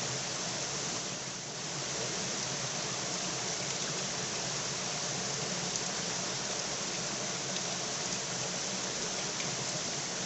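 Flowing river water rushing with a steady, even hiss.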